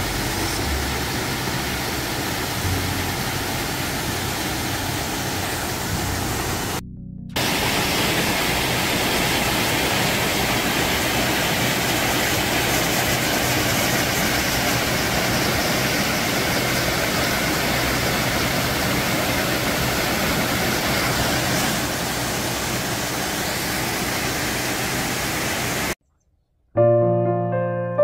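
Steady rush of a tall, narrow mountain waterfall with a small flow, falling into a deep plunge pool. The rush drops out briefly about seven seconds in, then cuts off near the end, where piano music begins.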